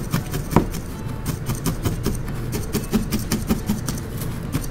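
Felting needle stabbing repeatedly into a wool ball on a bristle brush felting mat: quick, crisp pokes, several a second, unevenly spaced.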